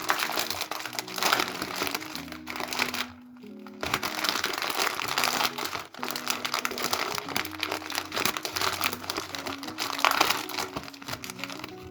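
Crinkling and rustling handling noise in several long stretches, with brief pauses, over soft background music.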